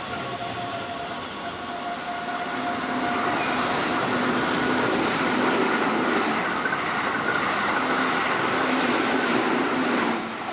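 Keihan 2200-series electric commuter train running alongside the platform: steady wheel-on-rail noise with a hum of a few steady tones, growing louder about three seconds in and falling away just before the end.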